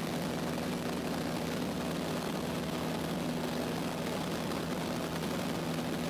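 Cessna 152's four-cylinder Lycoming piston engine and propeller droning steadily in flight, heard from inside the cabin, with an even, unchanging pitch.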